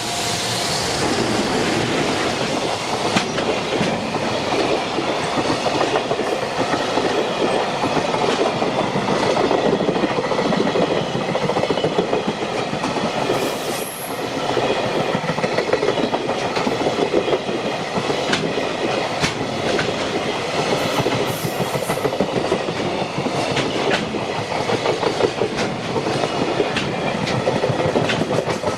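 Freight train rolling past close by: a steady loud rumble of wagons, with wheels clacking over the rail joints.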